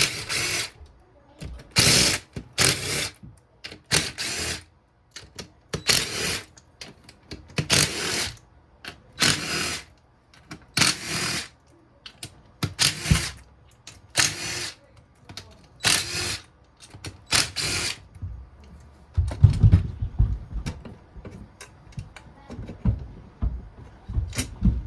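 Ratchet wrench clicking in short strokes about once a second, undoing the engine case screws of a Honda CRF150R. Near the end the clicking gives way to a few dull, low knocks.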